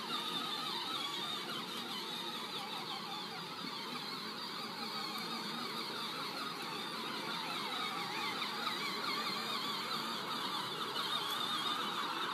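Small electric motors and gearboxes of children's battery-powered ride-on quads whining steadily with a wavering pitch as the quads drive over grass.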